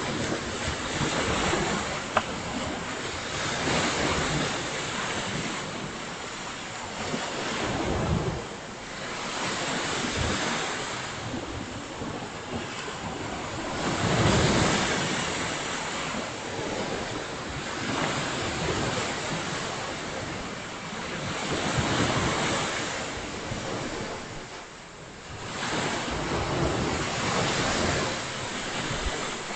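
Ocean surf breaking and washing up the beach, swelling and fading every few seconds, with wind rumbling on the microphone.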